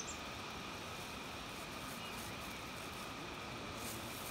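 Steady outdoor ambience: an even hiss with a faint, steady high tone underneath.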